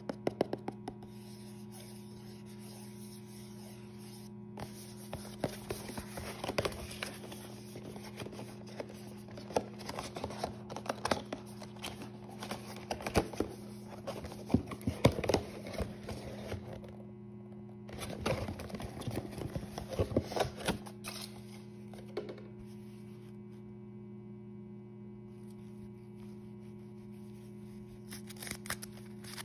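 Cardboard toy box being handled and opened by hand: scratching, tapping and tearing of the card flaps, busiest through the middle and dying down in the last few seconds, over a steady low electrical hum.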